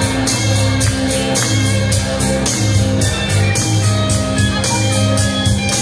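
Live band playing amplified music with electric guitar, bass and drums, a heavy bass line under a quick steady beat.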